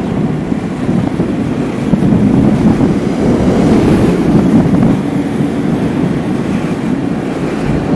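Steady wind buffeting the microphone over the engine and road noise of a moving vehicle, rising and falling slightly in level.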